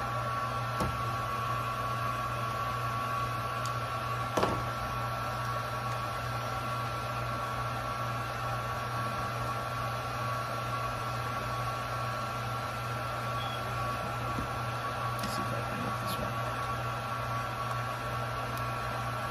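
Electric hot-air blower running steadily, a whirring hiss with a high motor whine, used to soften the plastic of a toy part so a pin can be pulled out. A sharp click about four seconds in.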